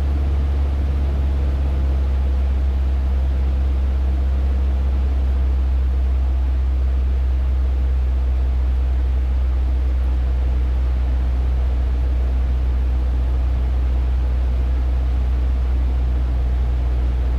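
Cessna 150's Continental O-200 four-cylinder engine and propeller droning steadily in flight, heard from inside the cockpit as a deep, even hum.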